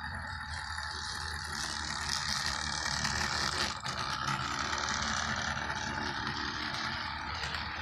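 HO scale model freight train running along the track, a steady mechanical rattle over a low hum, growing louder through the middle as it passes.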